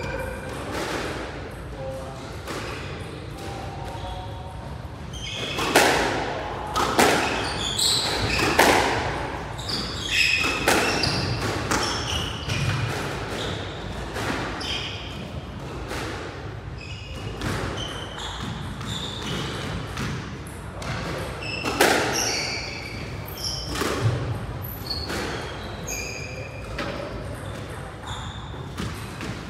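Squash rally: the ball is struck by rackets and smacks off the court walls in quick, irregular hits, starting about five seconds in, with court shoes squeaking on the wooden floor between shots.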